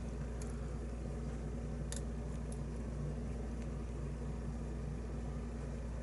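Steady low hum of room or appliance noise, with a few faint light clicks, about three, from a metal lock pick working inside a brass pin-tumbler cylinder.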